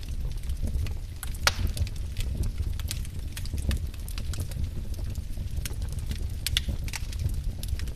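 Wood fire crackling: irregular sharp pops and snaps from burning logs over a steady low rumble, with one louder snap about a second and a half in.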